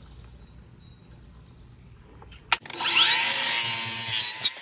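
A miter saw with a non-ferrous blade starts a little over halfway in, its motor rising in pitch. It then cuts through an aluminum deck rail with a loud, steady, high-pitched whine, which stops just before the end.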